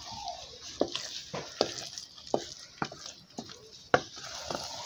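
Wooden spoon stirring rice and beaten egg in an aluminium saucepan, knocking and scraping against the pot two or three times a second, the loudest knock about four seconds in, over a faint sizzle of the egg cooking.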